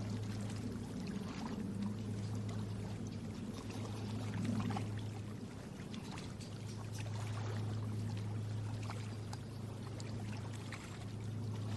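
Water trickling and splashing steadily, with many small drips and splashes, over a steady low hum.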